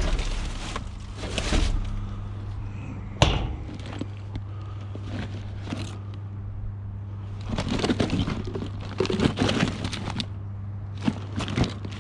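Rustling, crinkling and clicking of things being handled while a discarded handbag is rummaged through, with one sharp knock about three seconds in, over a steady low hum.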